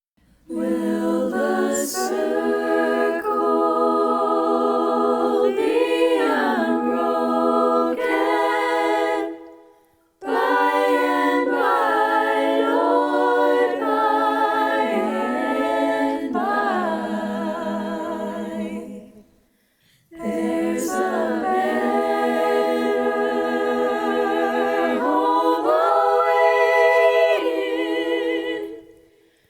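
Girls' choir singing a cappella in several parts, in three long phrases broken by brief silences about ten and twenty seconds in.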